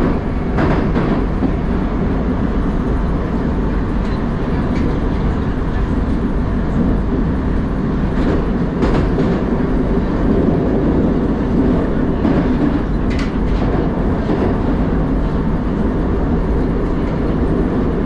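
Steady rumble of an 81-760/761 Oka metro train running at speed, heard from inside the passenger car, with a few sharp clacks along the way.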